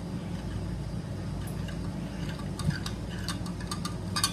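Light clicks and clinks of metal parts being handled while the handle of a steel hamburger press is fitted, with a cluster of sharper clicks near the end. A steady low hum runs underneath.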